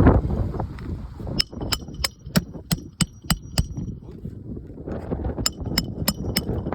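Hammer driving roofing nails into a replacement asphalt shingle: a run of about eight quick ringing metal strikes, about three a second, then after a pause four more.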